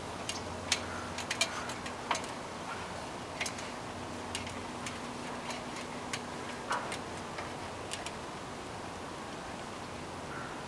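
Scattered light clicks and taps from a pump-type suction cup being handled and set against window glass from a ladder, over a faint low hum that stops about two-thirds of the way through.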